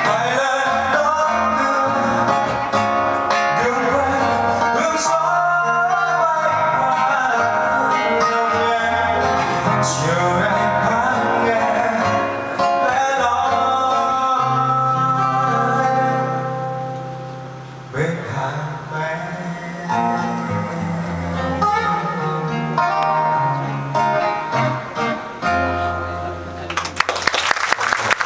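Live band music with a singer: a vocalist sings over guitar and drums, heard from the crowd. The music dips briefly about two-thirds of the way through, then picks up again, and a loud noisy burst comes near the end.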